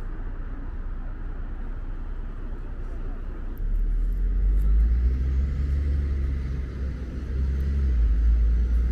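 Road traffic rumbling by, low and steady. A motor vehicle's engine rumble swells about three and a half seconds in and stays loud, with a faint rising whine over it.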